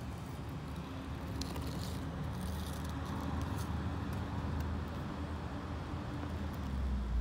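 Steady low outdoor rumble with a faint hum and a few faint ticks a second or two in. The rumble swells near the end.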